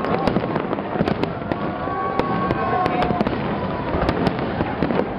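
Aerial fireworks display going off: a rapid, continuous stream of sharp pops and crackles over a steady rumble of bursts.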